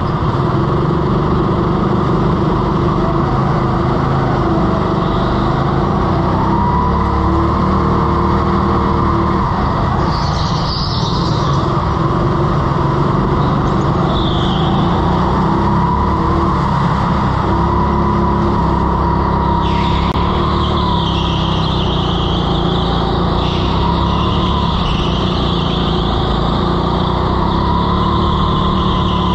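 Go-kart engine running hard at speed from the driver's seat, its note wavering up and down through the corners. A higher squeal comes in briefly twice and then holds through the last third: the tyres sliding on a slippery floor.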